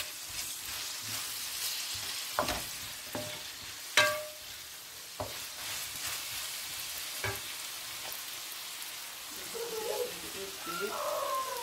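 Vegetables sizzling in a stone-coated nonstick frying pan as they are stirred with a wooden spoon. The spoon knocks against the pan a few times, loudest about four seconds in. Chopped tomatoes are tipped in near the end.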